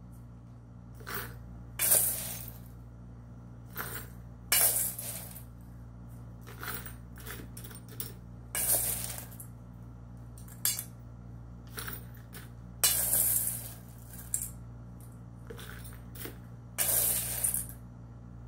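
Silver shot being scooped with a metal spoon from a stainless steel bowl and tipped into a shot basket: bursts of metallic clinking and rattling, each burst brief, coming irregularly about every second or two.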